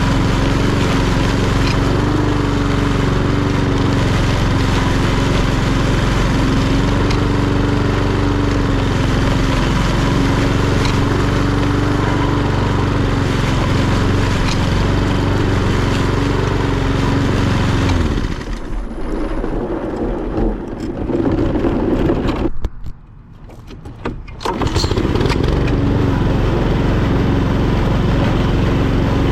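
Etesia Pro46 lawnmower's Honda GCVx170 single-cylinder four-stroke engine running steadily under mowing. About 18 seconds in, the note changes and thins. Around 23 seconds it falls much quieter for about two seconds, then the mower runs steadily again.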